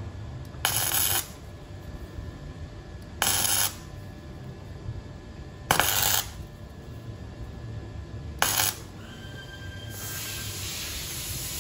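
Electric arc welder making four short welds, each a crackling burst of about half a second, a couple of seconds apart, tacking onto a broken exhaust stud bolt so it can be turned out. A steady hiss comes in near the end.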